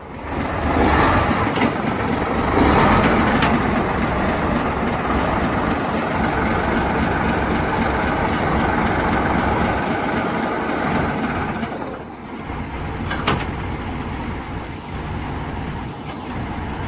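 Heavy vehicle running, a steady dense rumble that drops a little in level about twelve seconds in, with one sharp click about a second after that.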